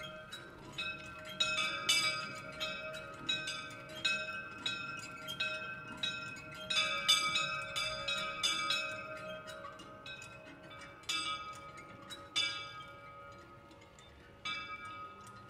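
Two small church bells, tuned D-flat and E-flat and swung by hand, ringing together in an irregular overlapping pattern of strikes that ring on. About ten seconds in the strikes thin out and grow softer. This is the full peal of both bells, the plenum that calls to the evening rosary.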